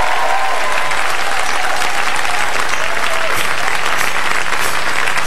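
Studio audience applauding, with a few whoops and cheers, as a band is introduced.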